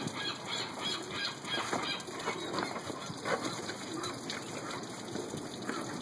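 Birds calling in short, irregular, repeated calls.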